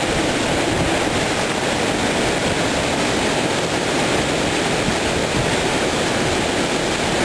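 Strong wind from a severe windstorm blowing steadily, rumbling on the microphone.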